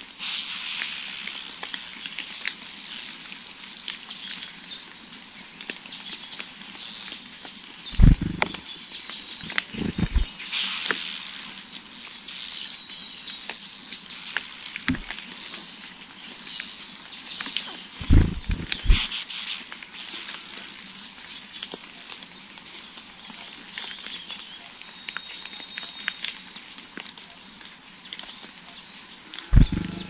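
Niltava nestlings begging with a dense, continuous stream of high, thin, rapid chirps as the parents bring food. A few dull thumps are scattered through it.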